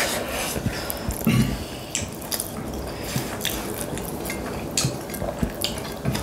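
Eating by hand at a table: fingers mixing rice and curry on plates, light clicks and clinks of plates and bowls, and chewing, scattered all through.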